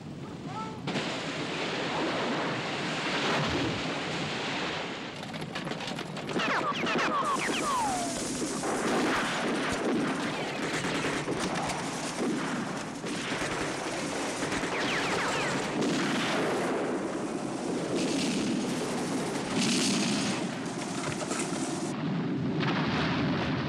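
Film battle soundtrack: dense rifle and machine-gun fire, many shots overlapping, with a few falling whistles about six to eight seconds in.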